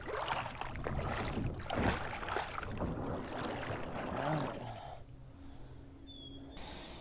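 A plastic sit-on-top fishing kayak, a Pelican Catch 130 HD, being pushed off a gravel shore into shallow water: hull scraping and knocking on stones and water sloshing and splashing for about five seconds, then quieter. A single short high whistled note near the end.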